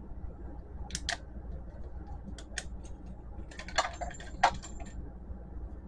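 Light plastic clicks and ticks of a small circuit board being worked out of its plastic holder by hand: a pair about a second in, a few more around two and a half seconds, and a quick cluster near four seconds, the loudest two close together there.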